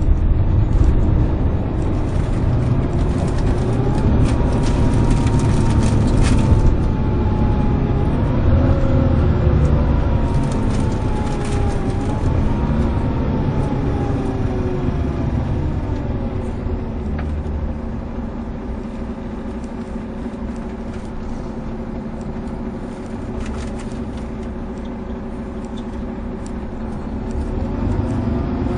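Volvo B11RT coach's 11-litre six-cylinder diesel engine pulling hard, heard from inside the cabin. Its pitch rises with the revs and drops back several times in the first half as it changes up through the gears. It then eases off and quietens before picking up again near the end.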